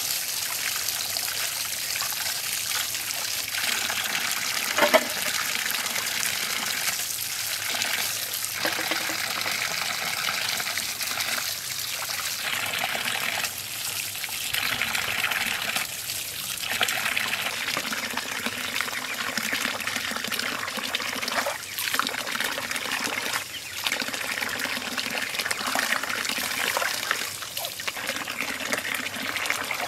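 Tap water running and splashing over vegetables being washed by hand at a tiled sink. The splashing swells and dips as the hands move under the stream, with one sharp click about five seconds in.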